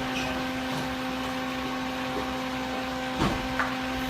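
Small handheld electric fan running steadily, its motor giving a constant hum over the hiss of the air it blows. Two brief knocks a little after three seconds in.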